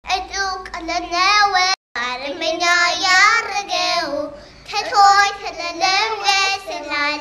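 Two young girls singing an Ethiopian Orthodox hymn (mezmur) with no accompaniment, holding wavering notes. The sound cuts out completely for a moment just before two seconds in.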